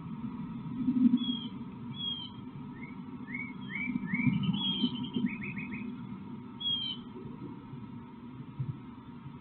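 Small birds chirping: short high chirps and calls, several rising, with a quick run of four notes about five seconds in. Underneath is an uneven low rumble and a faint steady hum.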